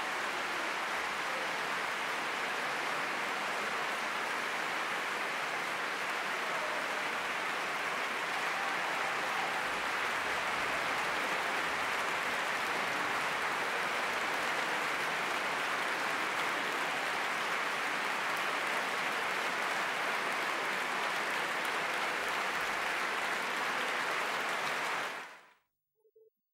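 Large concert-hall audience applauding steadily, cut off suddenly near the end.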